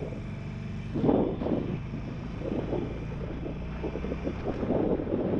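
Harley-Davidson Sportster Forty-Eight's 1200 cc Evolution V-twin running steadily at highway speed, with wind buffeting the microphone in uneven gusts, the strongest about a second in.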